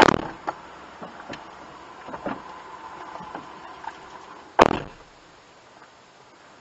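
Doors of a kei van being shut, heard from inside the cabin: two solid thumps about four and a half seconds apart, the second the louder, with a faint steady tone between them.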